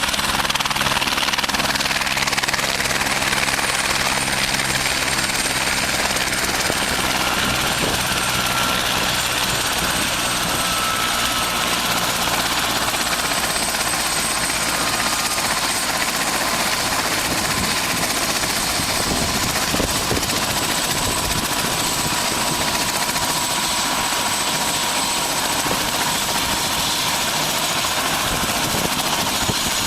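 Helicopter running: a loud, steady din of rotor and engine noise with a high whine held throughout.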